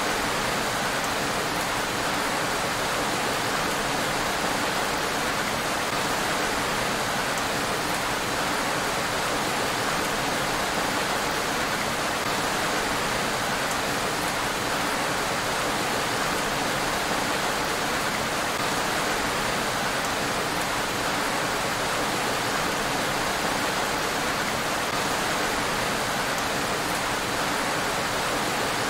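Steady rain falling on a road, an even hiss that does not change.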